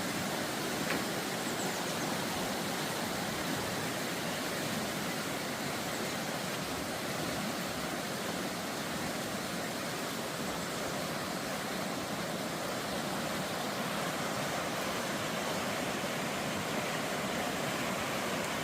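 Steady rushing of fast-flowing water, an even roar with no breaks, typical of a stream swollen by heavy rain.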